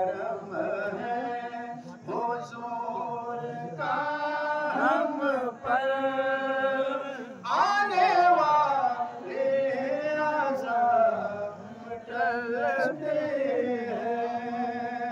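A man's voice chanting devotional verses unaccompanied, holding long, wavering melodic notes in phrases of a few seconds each.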